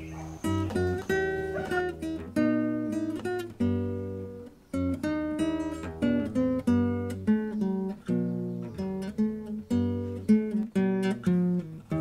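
Acoustic guitar music: a run of plucked notes and strummed chords, each ringing out and fading.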